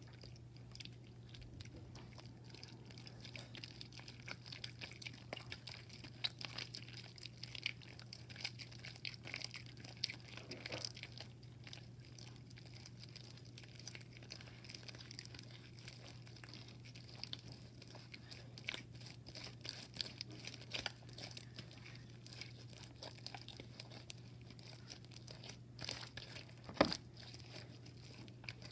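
Irregular small crackling and crinkling handling noises, with one sharper click near the end, over a steady low hum.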